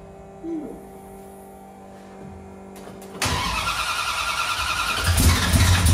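Freshly built 440 big-block V8 with a tunnel-ram intake being cranked over by the starter, a wavering whine that begins about three seconds in. Near the end it sputters, trying to fire on fuel poured into the carburetors during a start-up attempt.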